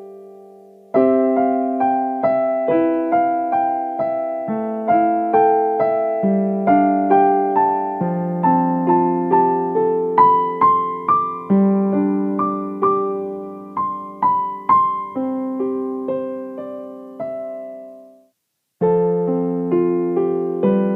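Background music: a gentle solo piano melody, notes struck about twice a second, stopping briefly to silence near the end and then starting again.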